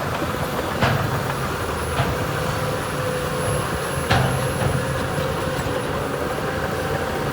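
Heavy diesel earthmoving machine engine running steadily, with three sharp knocks about a second in, at two seconds and at four seconds, the last the loudest.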